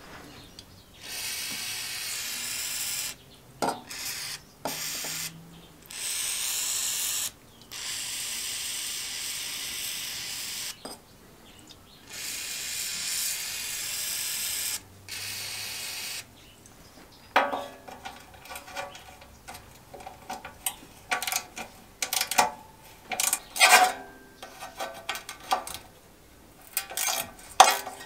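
An aerosol spray lubricant hissing out through a straw in about seven bursts of one to three seconds each, soaking the rusted pivots and roller bearing of an old reel lawnmower. In the second half it gives way to a ratchet wrench clicking quickly and metal parts clinking.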